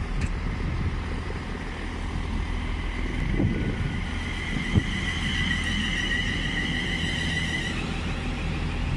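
Class 360 Desiro electric multiple unit running into the platform: a steady low rumble of wheels on rail with a couple of thuds, and a steady high two-note whine from about three and a half seconds in that stops near the end.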